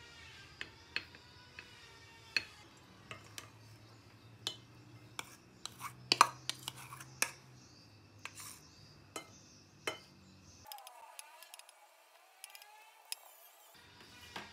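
Wooden spoon clicking and scraping against a ceramic plate as food is arranged, then rice knocked out of a plastic bowl onto the plate, with a cluster of sharper knocks about six seconds in.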